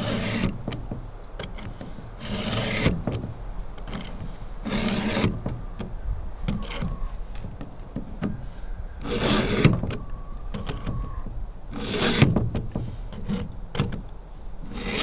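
A Stihl 2-in-1 chain sharpener, with a round file for the cutter and a flat file for the depth gauge, pushed along the chain of a Stihl MS271 Farm Boss chainsaw. It makes short rasping file strokes every two to three seconds, sharpening each tooth and lowering its depth gauge at the same time.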